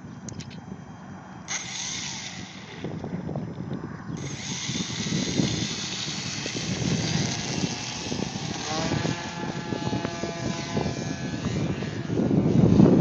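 Electric motor and propeller of a radio-control Hawker Hurricane 25E model plane whining at high pitch. The whine starts about a second and a half in, cuts out briefly, then runs on with its pitch shifting. Wind rumbles on the microphone underneath and grows louder near the end.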